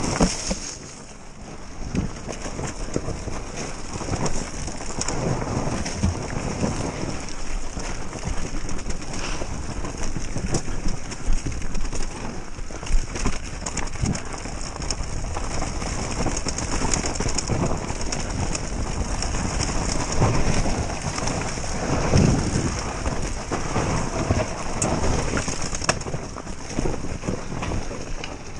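GasGas enduro motorcycle being ridden, its engine rising and falling with the throttle under a rough, rushing noise.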